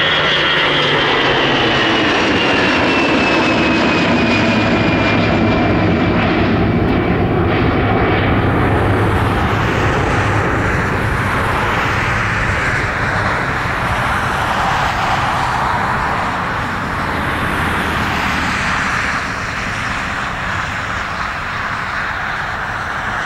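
Airbus A320 jet engines at climb thrust just after takeoff, heard from below as the airliner climbs away: a high engine whine falls steadily in pitch over the first several seconds over a loud, wide roar, which then eases a little as the plane recedes.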